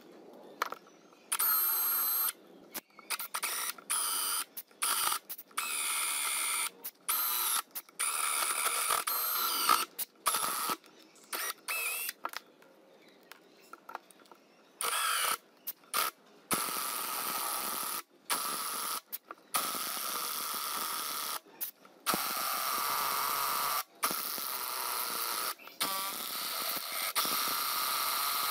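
Small electric motor whirring with a steady whine, in many short runs that start and stop abruptly.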